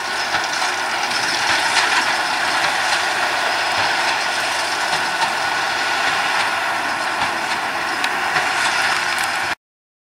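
John Deere 6210R tractor's six-cylinder diesel and Claas Quadrant 2100 big square baler working hay. A steady mechanical clatter of the running machinery, with the odd faint knock. It cuts off abruptly about nine and a half seconds in.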